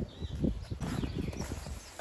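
Faint handling noise: soft irregular knocks and rustling.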